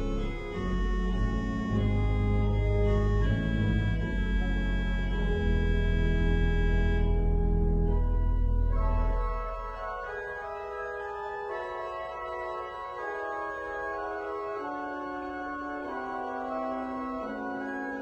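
Pipe organ playing, loud and full with deep bass at first. About nine seconds in the deep bass and the highest notes drop away and it continues more softly, with a line stepping down near the end.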